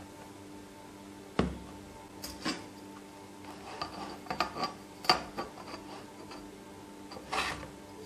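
Plastic tub and steel ruler being handled: a string of knocks, taps and clinks as the ruler is set against the tub's rim, with a sharp knock about a second and a half in, a cluster around the middle and a longer scrape near the end. A steady low hum runs underneath.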